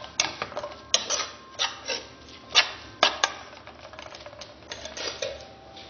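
A metal spoon clinking and scraping against the side and bottom of an aluminium pot while stirring frying onions: a run of irregular sharp clinks, louder in the first three seconds and softer near the end.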